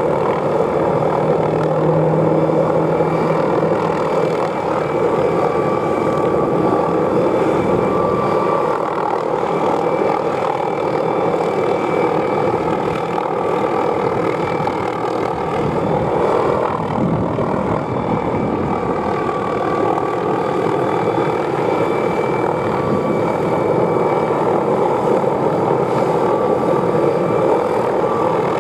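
McDonnell Douglas MD520N NOTAR helicopter flying, a steady rotor and turbine noise with a faint high turbine whine. Road traffic passes beneath it, with one vehicle going by about seventeen seconds in.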